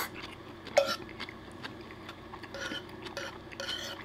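Eating pasta with a metal fork from a wooden plate: the fork ticks and clicks against the plate, one sharp click a little under a second in, with a few short, soft eating noises later on.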